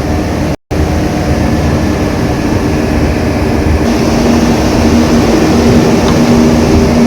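Carrier 30GT air-cooled chiller running: a loud, steady machine drone of fans and compressors with a layered hum. The sound drops out for an instant about half a second in. From about four seconds in, one hum tone and the hiss grow stronger.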